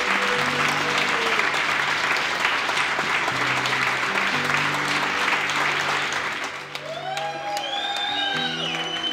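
A room of people clapping over background music with low held notes. The applause dies down about two-thirds of the way through, and a gliding melody comes in over the music.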